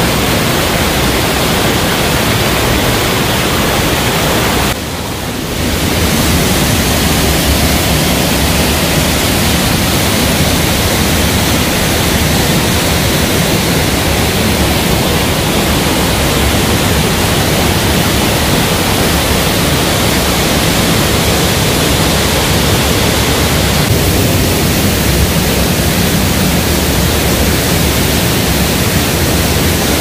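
Waterfall pouring into a plunge pool: a steady, loud rush of falling water, briefly dipping in level about five seconds in.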